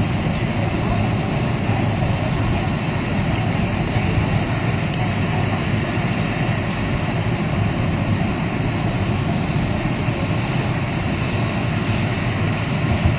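Fire ladder truck's diesel engine running steadily: a constant, unbroken low drone.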